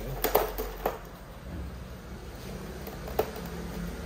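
A few short sharp clicks and knocks of plastic parts, three in the first second and one more about three seconds in, as the back casing of an HP 22 all-in-one PC is lifted and worked loose.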